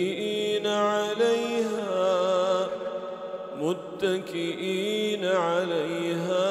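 Solo male voice chanting Quran recitation (tajweed), drawing out long ornamented vowels that waver up and down in pitch. There is a short break about three and a half seconds in, then the chant resumes with the next phrase.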